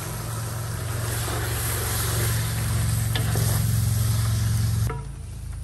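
Crawfish tails and sautéed vegetables sizzling in a large aluminum pot while a wooden spoon stirs them, with the odd light knock of the spoon, over a steady low hum. About five seconds in the sound drops off suddenly and turns much quieter.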